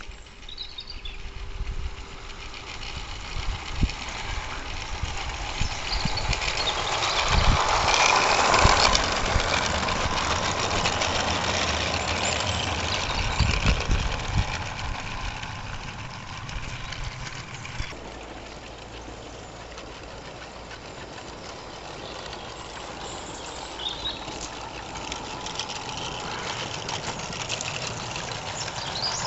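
Radio-controlled Swift Sixteen Tin Turtle model locomotive hauling five small wagons along garden railway track: a mechanical rumble of wheels on the rails with occasional knocks. It is loudest about eight seconds in, then eases off.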